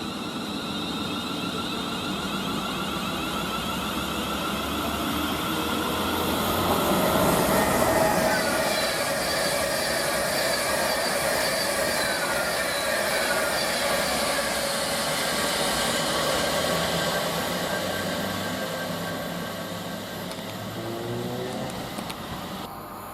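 A train passing on the main line, growing louder to a peak about eight seconds in and then easing off. A whine runs through it, sliding down in pitch as it goes by.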